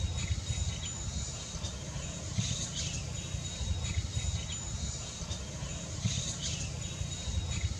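Outdoor ambience of insects: a thin, steady high-pitched insect tone with pulses of chirping every second or two, over a continuous low rumble.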